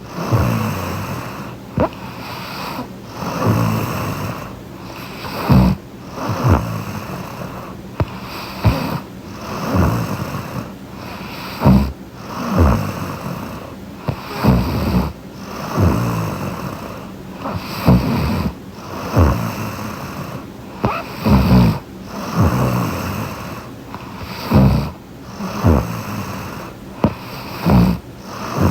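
A young woman snoring in her sleep close to the microphone: rasping snores in a steady rhythm, a loud peak every few seconds with breathing in between.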